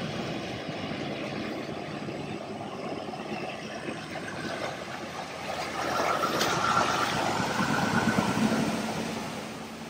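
A vehicle's engine running. It grows louder about six seconds in and fades near the end, as the vehicle comes close and moves away.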